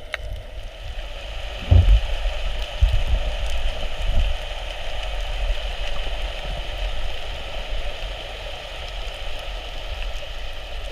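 Underwater sound picked up by a submerged camera: a steady crackling, rain-like hiss of water, with heavy low thumps of water moving against the camera housing, loudest about two seconds in.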